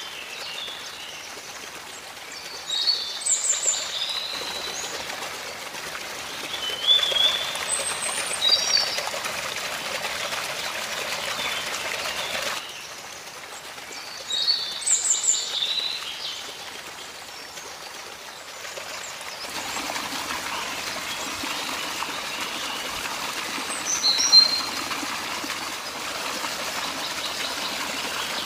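Water trickling steadily along a small channel in sand, with birds chirping in short bursts a few times.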